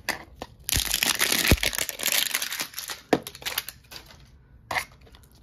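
Crinkly plastic wrapper of a Miniverse blind-ball capsule being torn off and crumpled for about two seconds, with two dull knocks near its start. Scattered clicks of hard plastic capsule parts follow.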